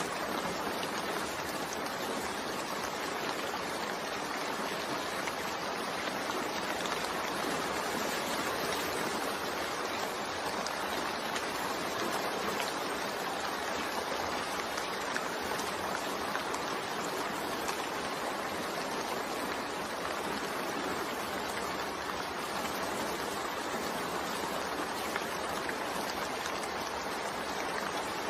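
Continuous rain blended with white noise: an even, unbroken hiss with no separate drops or pauses.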